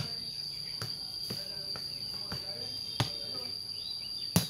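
A ball being kicked, sharp thuds about a second in, at three seconds, and loudest near the end, over a steady high-pitched insect drone.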